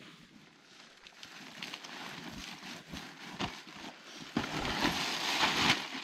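Rustling and crinkling of camping gear being handled, with scattered small clicks and a louder, denser stretch of rustling from about four and a half seconds in until just before the end.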